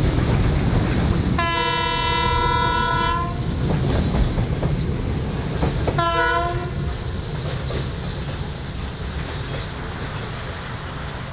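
Freight train's wagons rumbling and clattering past and slowly fading away, while the hauling DF5D diesel-electric locomotive sounds its horn twice: a long blast about a second and a half in, then a short one about six seconds in.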